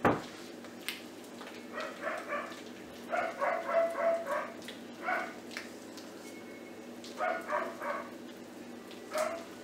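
A small dog barking in short runs of high yaps, several times over, with a sharp knock right at the start.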